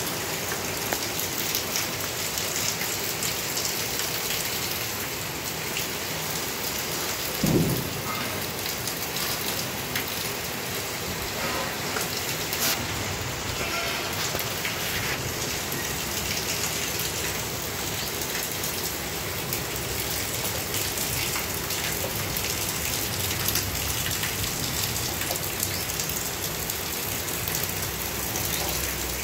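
Heavy rain pouring steadily, with a brief low thump about seven and a half seconds in.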